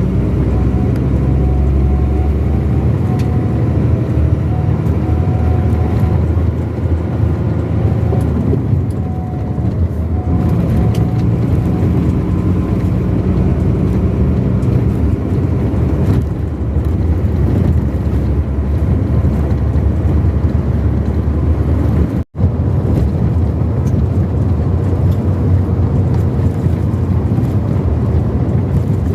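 Vehicle driving steadily along a highway: continuous engine and road noise, with a split-second dropout to silence about 22 seconds in.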